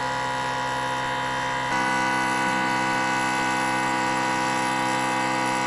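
Electric air-suspension compressor running steadily, pumping up the van's rear air springs from empty for a first pressure test. Its hum holds several steady tones and shifts slightly in tone and level under two seconds in.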